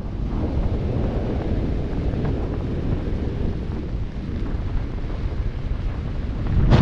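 Wind rushing over the camera microphone of a skydiver descending under an open parachute canopy: a steady noise with one sharper gust near the end.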